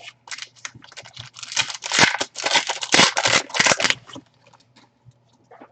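Foil wrapper of a Donruss football trading-card pack being torn open and crinkled, a rapid run of ripping and rustling that is loudest in the middle and stops about four seconds in, with one short rustle near the end.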